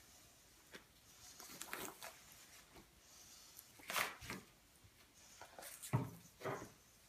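Rabbit skin and fur being torn off the carcass by hand: short, scattered wet tearing and rustling sounds, with a louder rasp about four seconds in and a soft thump about six seconds in.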